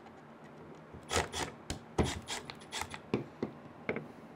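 Milwaukee cordless impact driver driving a screw into the stand's base plate in a series of short, sharp bursts, starting about a second in.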